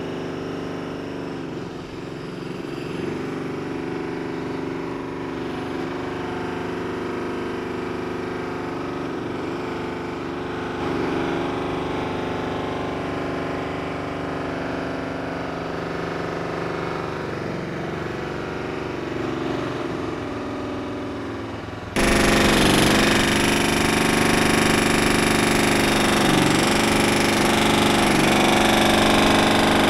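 Construction-site machinery running steadily; after about twenty seconds the noise suddenly gets much louder.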